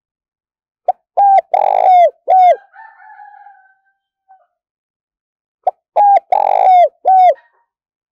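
Spotted dove cooing close up: two phrases of several short falling coos with a longer, rougher note in the middle, about five seconds apart. A fainter drawn-out note trails after the first phrase.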